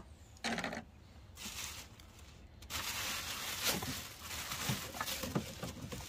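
Large plastic garbage bag rustling and crinkling as it is rummaged through, with a few light knocks of items being handled.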